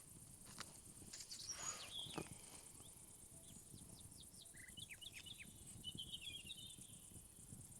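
Faint woodland ambience: a steady, high insect trill runs throughout, with scattered short bird chirps and a brief flurry of chirping about six seconds in.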